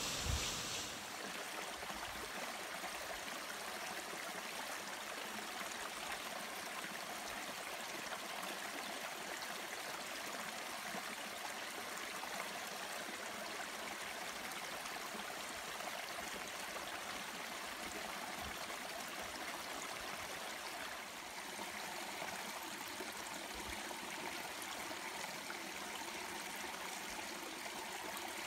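Small mountain stream trickling over mossy rocks and splashing into a shallow pool, a steady running-water sound that shifts slightly in tone about two-thirds through.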